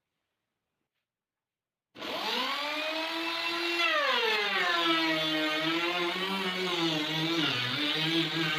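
Small electric power tool motor starting abruptly and running as a continuous whine, its pitch sagging and wavering as it comes under load while working wood.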